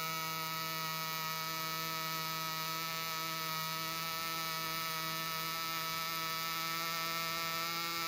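Robotic welding arc from a FANUC CRX cobot's torch laying a weld bead: a steady, even buzz with a fixed pitch.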